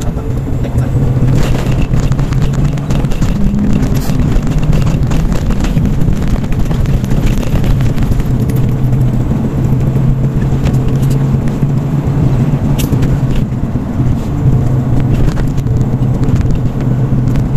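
Diesel tractor-head truck running steadily at cruising speed, heard from inside the cab as a low, even drone with road and tyre noise. A few short clicks or rattles come through.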